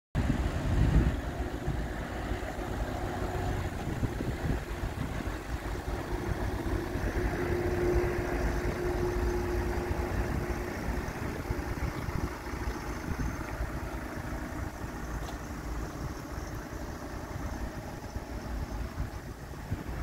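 Wind buffeting the microphone over a steady low motor hum, louder about a second in, with a faint steady tone holding for a few seconds near the middle.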